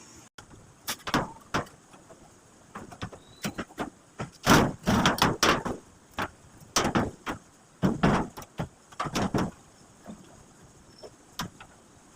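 Irregular metal knocks, clanks and scrapes from frame parts being handled and worked on, loudest in a cluster about halfway through and again about 8 seconds in, then thinning out.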